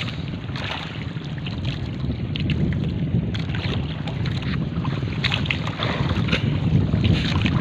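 Wind buffeting the microphone over the sound of choppy sea water lapping and splashing against a small drifting outrigger boat, with scattered short splashes and knocks.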